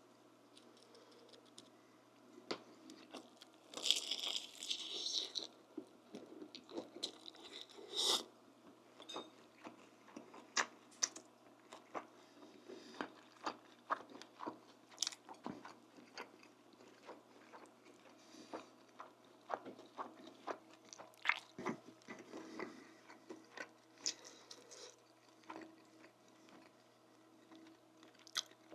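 Close-miked eating: a person biting and chewing food with crunching and repeated small mouth clicks, with a loud crunchy bite about four seconds in.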